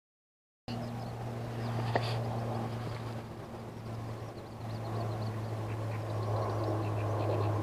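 Riverside ambience that cuts in suddenly under a minute into silence: a steady low hum with a busy scatter of short, high bird calls over it.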